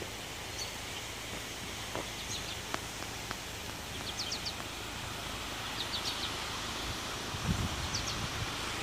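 Steady outdoor background hiss with a few short, high bird chirps scattered through it, some coming in quick runs of three or four. There are low rumbles on the microphone about seven and a half seconds in.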